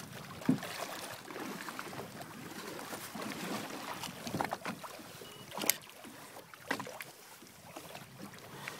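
Water sloshing and splashing against a boat's side around a bluefin tuna held at the surface, with a few short, sharp splashes.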